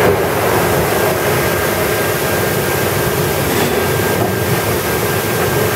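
Steady, loud drone of heavy industrial machinery, with a faint constant high whine running through it.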